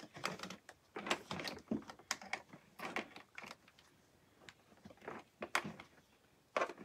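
Scattered light clicks and taps of small objects being handled, irregular, with a short pause in the middle.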